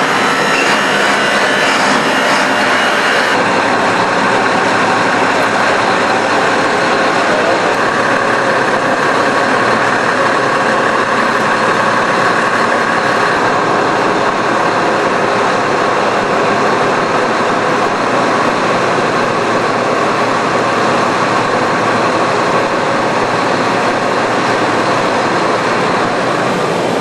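Heavy machinery running steadily: a constant engine-like drone under a broad hiss, with no change in speed.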